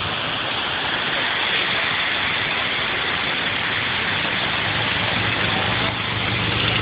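Steady rushing noise, with a motorcycle engine running at low speed coming in underneath it over the last second or two.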